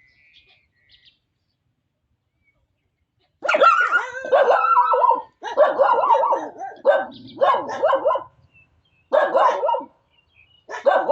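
An animal calling loudly and repeatedly, beginning about three seconds in, in runs of one to two seconds with short breaks between them.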